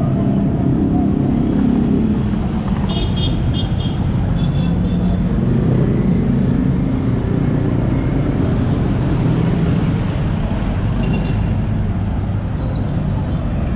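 Busy street traffic: vehicle engines running in a steady low rumble, with a few short high-pitched toots over it.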